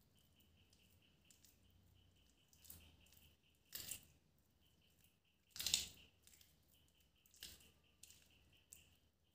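Hands squishing raw chicken drumsticks in a thick cornflour marinade in a steel bowl: faint, scattered wet squelches, two of them louder near the middle.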